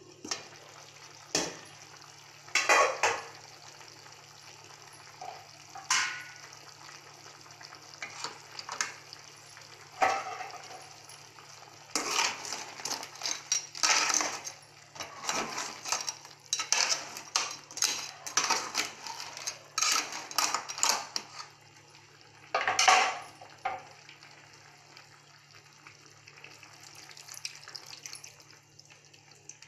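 Aluminium kadai of crab curry being worked: a lid lifted off, then a metal spoon knocking and scraping against the pan as crab pieces in thick masala are stirred. A few separate clanks at first, then about ten seconds of quick clattering and one loud clank, with quieter stirring near the end.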